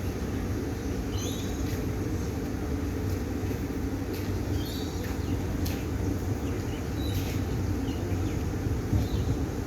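Siemens Nexas electric multiple-unit train pulling out of a station: a steady low rumble.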